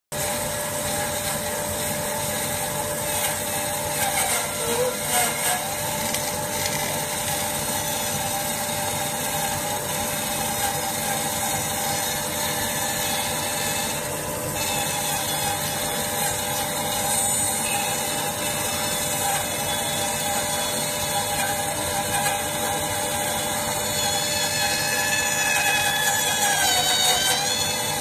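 Woodfast HB350A band sawmill sawing through a log, its blade running steadily with a constant whine as the saw head feeds along the cut.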